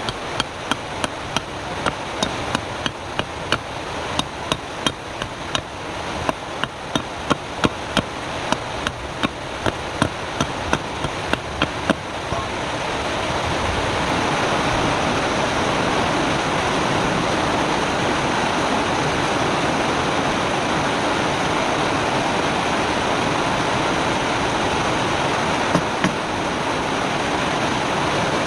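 A rapid, regular series of knocks, about two or three a second, for roughly twelve seconds. Then a steady rushing noise takes over, with one brief knock near the end.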